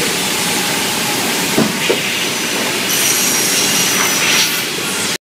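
Automatic cross-cut saw machine running in a timber yard: a steady loud hiss with two short knocks about a second and a half in, and a high thin whine for about a second and a half from three seconds in. The sound stops abruptly just before the end.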